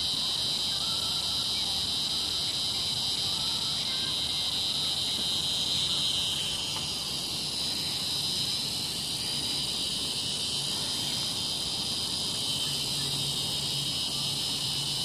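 Steady, high-pitched chorus of evening insects: a dense, continuous trilling that fills the air without a break.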